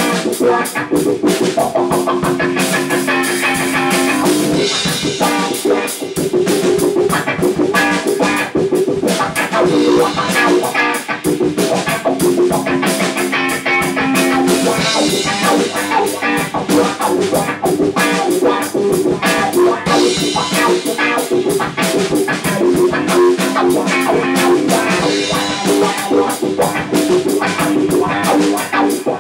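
Loud improvised instrumental rock from an amplified electric guitar and a full drum kit played together. The drums hit steadily throughout, and the guitar returns to a held chord figure about every ten seconds.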